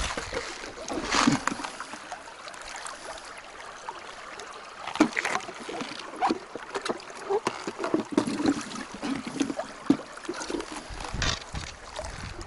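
Shallow stream water running over stones, with small splashes and irregular plastic clicks as a plastic fish-keeping box is handled in the water.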